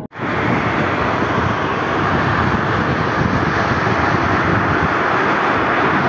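Strong tornado winds rushing steadily: a loud, even noise with no let-up.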